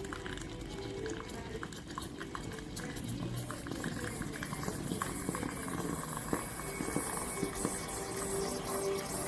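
Yabano 3.5-bar steam espresso machine bubbling and hissing steadily, with scattered crackles, growing slightly louder.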